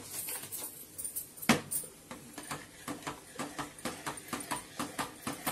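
A ladle stirring dal in a stainless-steel pot, knocking lightly against the sides about three times a second, after a single sharp metal clink about a second and a half in.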